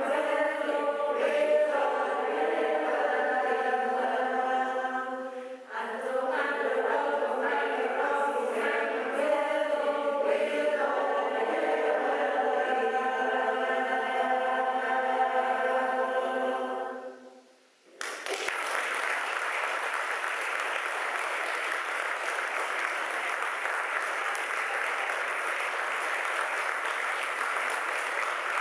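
Large mixed choir singing in harmony, with a short break about five and a half seconds in; the final chord dies away about seventeen seconds in. After a moment of silence the audience breaks into steady applause.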